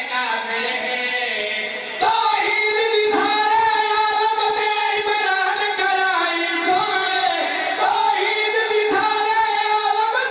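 Men's voices singing devotional verse together into a microphone in long, held, slowly bending notes, getting louder about two seconds in.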